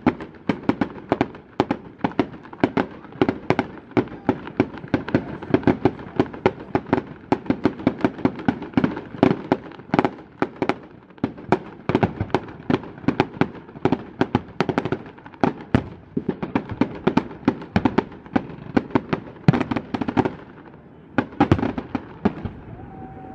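Fireworks display: a rapid, continuous string of aerial shell bursts and crackling reports, several bangs a second, that thins out briefly about twenty seconds in before a few more bangs.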